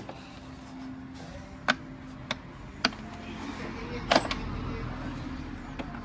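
Sharp clicks and knocks of tools and loosened parts being handled on a scooter engine during disassembly, about five in all, the loudest about four seconds in, over a steady low hum.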